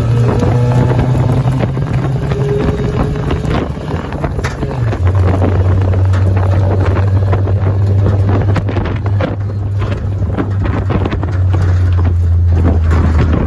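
A motor running steadily with a low hum that shifts slightly about five seconds in, under heavy wind buffeting on the microphone.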